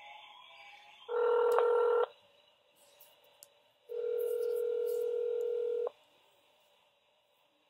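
Telephone line tones as a dropped call is redialled: a loud steady tone about a second long, then after a pause a steadier ringing tone lasting about two seconds.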